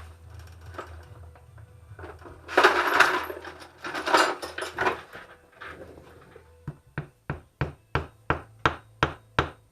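Scraping and handling noises, then, from about two-thirds of the way in, a run of sharp, evenly spaced taps on wood, about three a second, as glued toothpicks are driven down into holes in a wooden lure body.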